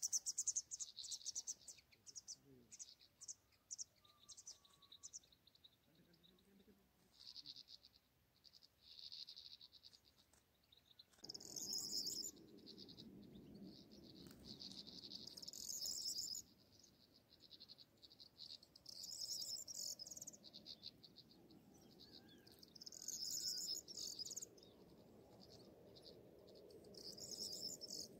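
Faint, high-pitched chirping and twittering of small songbirds, with a louder twittering phrase about every four seconds. A faint low hum comes in about eleven seconds in.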